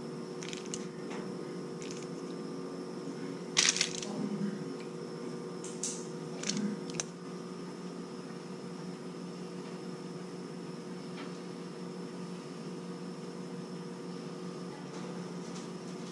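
Steady electrical hum of a kitchen appliance. In the first half it is broken by a few brief crinkles and taps as butter pats are set onto fish fillets on a foil-lined baking pan; the loudest comes about three and a half seconds in.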